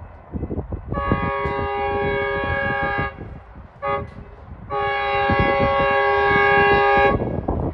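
Horn of an approaching Metrolink commuter train sounding a chord of several steady tones: a long blast, a short toot, then another long blast, the pattern of a grade-crossing warning. Wind buffets the microphone underneath.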